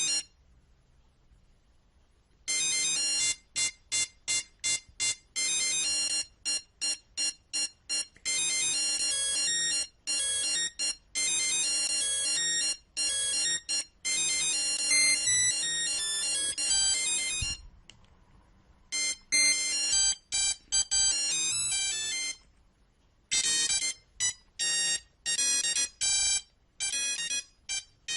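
Nokia 3310 monophonic ringtone melody: a quick tune of short, bright beeping notes one at a time, broken by short pauses between phrases.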